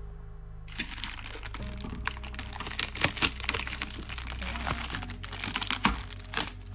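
Thin blue protective plastic film crinkling and crackling as it is peeled and pulled off the clear orb of a BiOrb vivarium. It starts about a second in, as a dense run of irregular crackles with a few sharp snaps.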